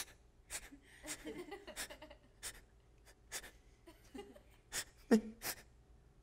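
A man mimicking sobbing: a string of short, sharp sniffs and gasping breaths, with brief whimpers about a second in and again near five seconds.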